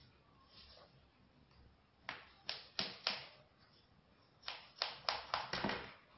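Sharp taps on a metal baking tray of baklava as hands work the paper cutting guide and dough: four quick taps about two seconds in, then a run of about six more near the end.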